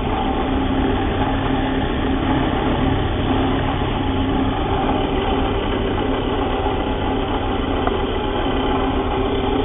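Bench drill press running steadily, its bit boring into timber to drill out a mortise.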